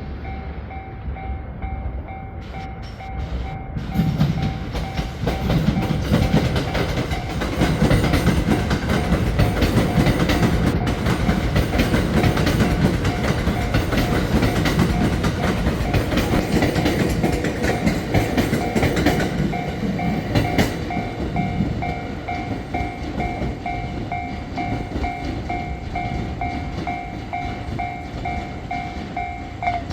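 Japanese level-crossing warning bell ringing in rapid repeated strokes while a train passes over the crossing. The train is loudest from about four seconds in to about twenty seconds, then fades as the bell keeps ringing.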